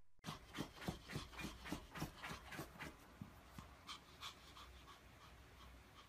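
A small dog moving about and panting: faint quick ticks about four times a second, slowing and fading out about halfway through.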